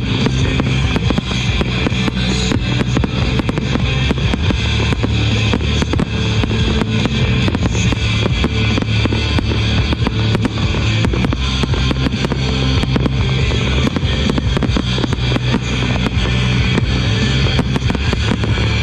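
Loud music with guitar and drums, with fireworks popping and crackling over it in quick succession.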